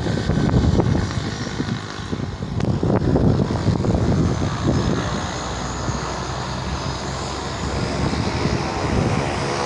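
Air Tractor turboprop planes taxiing, their engines and propellers making a steady drone with a high turbine whine. Wind buffets the microphone during the first few seconds.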